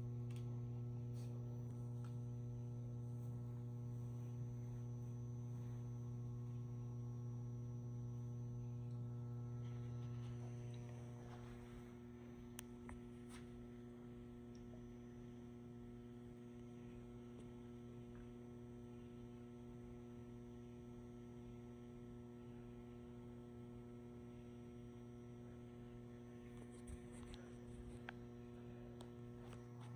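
Faint, steady electrical hum with a stack of overtones from the ballast of a 150-watt high-pressure sodium flood light. It becomes a little quieter about a third of the way in.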